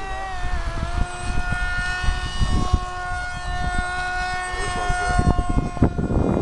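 Electric motor and propeller of a twin-boom pusher RC plane whining steadily in flight, its pitch dipping briefly about half a second in. Wind buffets the microphone, with a louder gust near the end.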